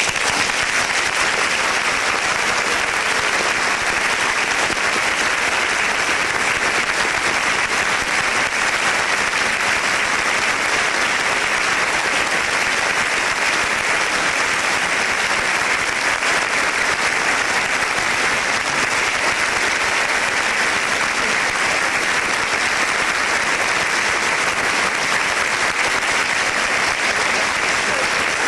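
Large audience applauding, a dense, steady clapping that holds at the same level throughout.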